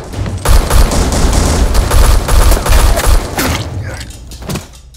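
Sustained rapid automatic gunfire, a dense roll of shots that thins out and fades over the last second or so.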